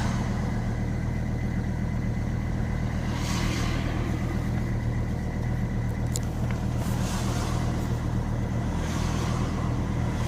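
Volvo S60 D5's 2.4-litre five-cylinder turbodiesel idling steadily, still cold, shortly after a cold start at about −10 °C following a week standing.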